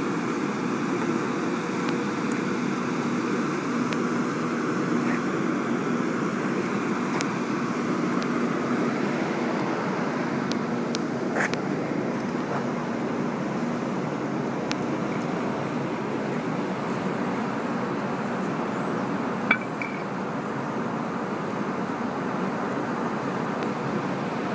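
Steady low hum and rumble, with a few faint clinks about halfway through and one sharp knock about three-quarters of the way through.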